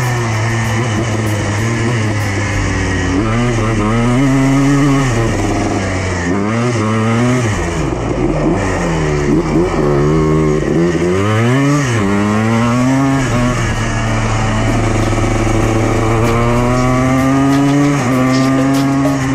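Yamaha Blaster ATV's single-cylinder two-stroke engine revved up and down repeatedly, its pitch rising and falling several times through the middle, then held at a steadier pitch near the end.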